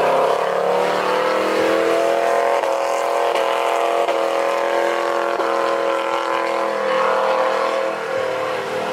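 SUV engine held at high, steady revs during a burnout, its spinning rear tyres adding a rushing hiss. The pitch stays nearly constant, with a slight drop in level near the end.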